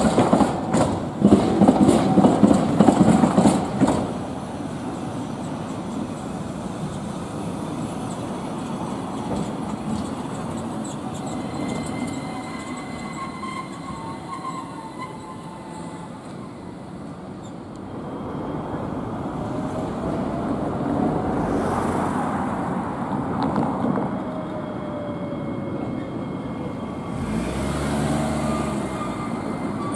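Moha 5000-type low-floor tram wheels clacking over the rail joints of a level diamond crossing: a quick run of loud clicks for the first few seconds. Then comes a steadier rolling and motor hum with faint whines, growing louder again in the second half as another tram draws near.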